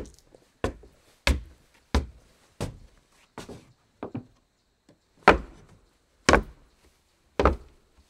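Footsteps on a wooden floor: ten steps, about one every two-thirds of a second. After about four seconds there is a pause of over a second, then the steps come slower, about one a second.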